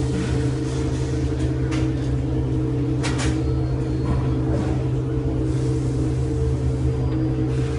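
A steady mechanical hum holding several fixed tones, with a couple of short knocks or clicks about two and three seconds in.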